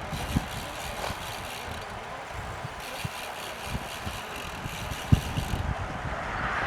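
Road bike freehub ratchets buzzing while coasting, starting and stopping abruptly in two stretches, over wind buffeting the microphone.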